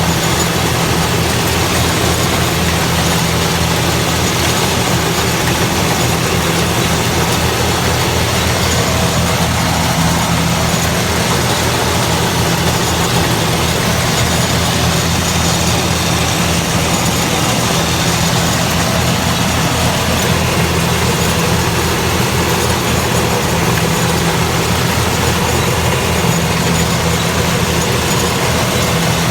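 Rice harvester running steadily: a constant low engine hum under an even, loud rush of machine noise.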